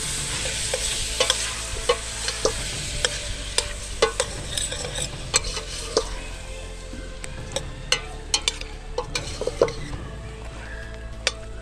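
A metal spoon stirring chunks of curried food in a stainless steel pot, clinking and scraping irregularly against the pot's sides, over food sizzling in the pot. The sizzle is strongest in the first few seconds and fades after that.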